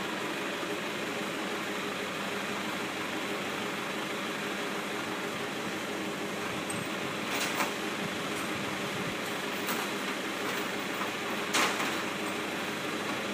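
John Deere farm tractor's engine idling steadily, with two sharp knocks about seven and eleven seconds in.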